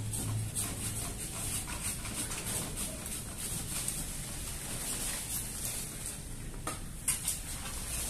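Irregular scratchy rustling and clicking of tree branches and leaves being worked on by hand, with a couple of louder sharp cracks about seven seconds in.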